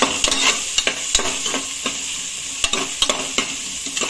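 Sliced onions and green chillies sizzling in hot oil in a pressure cooker pot, stirred with a metal ladle that scrapes and clicks against the pot's base and sides several times a second.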